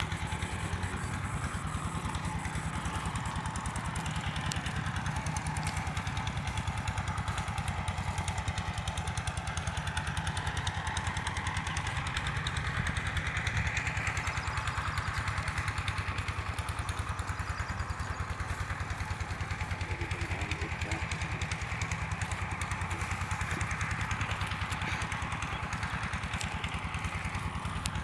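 A small engine running steadily with a fast, even firing beat.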